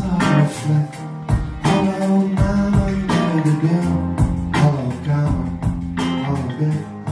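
Live band playing a song on stage: guitar over sustained low notes, with regular drum hits.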